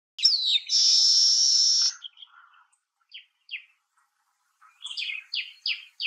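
Baya weaver singing. A falling chirp is followed by a loud buzzy wheeze lasting about a second. After a pause come a few short chirps, then a run of quick falling chirps from near the end.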